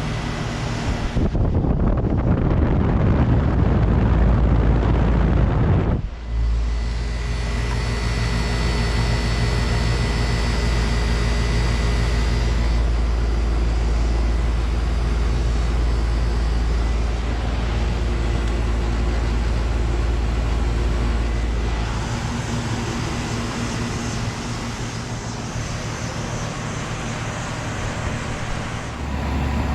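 1995 Carrier TECH 2000 (38YKC) 1.5-ton heat pump outdoor unit running: its Tecumseh AW reciprocating compressor hums steadily under the whoosh of the condenser fan. For the first few seconds a heavy rush of air or wind covers the microphone.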